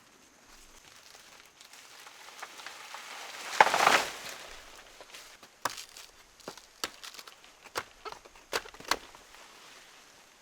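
Rustling and crackling of plant material being handled, swelling into a loud rustle about three and a half seconds in, followed by a few sharp snaps.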